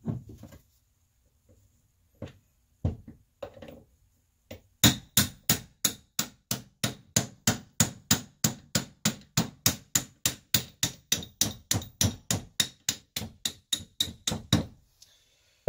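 Ball peen hammer tapping on a socket to drive a floating wrist pin out of a piston. A few scattered knocks come first, then a steady run of sharp metal taps, about four a second, for some ten seconds.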